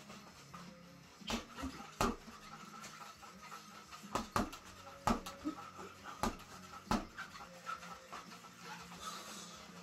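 Gloved punches smacking a homemade reflex bag, a padded ball on a spring-mounted rod, in sharp single hits and quick pairs at irregular intervals.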